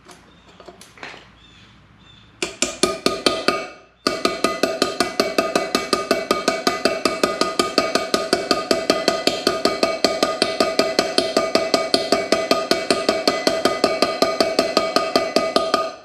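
Rapid, evenly paced hammer strikes on a metal driver, tapping a new ceramic wheel bearing into a motorcycle's rear wheel hub, each blow ringing metallically. A short burst comes about two and a half seconds in, then after a brief pause a steady run of about six strikes a second.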